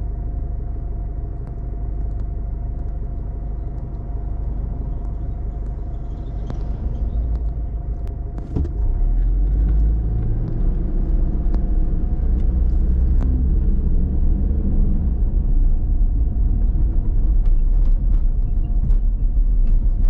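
Car interior while driving: a steady low rumble of engine and tyres with a faint steady whine and scattered small knocks and rattles, getting louder about eight seconds in.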